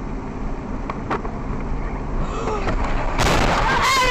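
Car interior on a dashcam: steady engine and road noise. About three seconds in, a sudden loud burst of noise breaks in with a wavering high-pitched sound over it.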